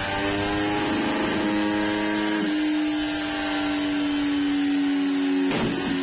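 Yamaha MT-10's crossplane inline-four engine running on a chassis dyno through a decatted Dominator exhaust, held at steady revs that sag slowly. Near the end there is a short crackle and the pitch steps back up.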